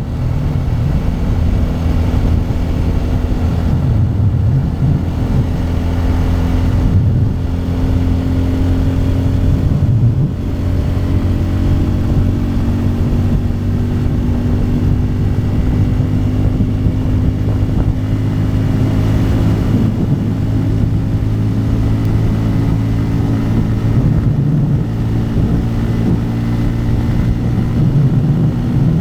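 Bajaj Pulsar N250's single-cylinder four-stroke engine running steadily at highway cruising speed. The engine note shifts in pitch briefly a few times with changes of throttle.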